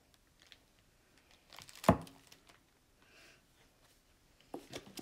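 Plastic wrapping crinkling and rustling around a lava lamp bottle, with one sharp, loud knock about two seconds in as the bottle is set down on the wooden table.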